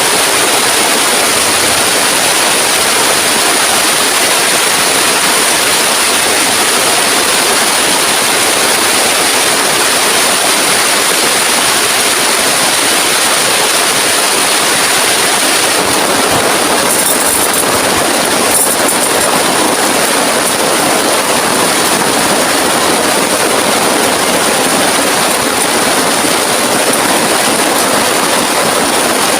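Heavy rain falling hard and steadily, a loud unbroken rushing hiss.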